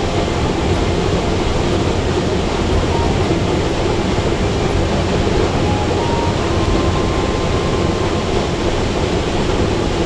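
Waterfall rushing: a loud, steady, even noise of falling water that does not change.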